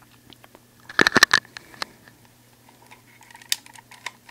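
Slide of a clear plastic Colt M1911A1 airsoft spring pistol being worked back by hand. A quick cluster of clicks and rattles comes about a second in, then a few lighter clicks; the slide is drawn only partway, short of full cock, to avoid a dry fire.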